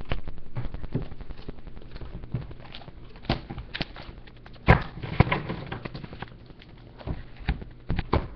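Paper tracts and their cardboard box being handled during unboxing: irregular taps and knocks with paper rustling, the loudest knock a little past halfway, followed by a couple of seconds of crinkling.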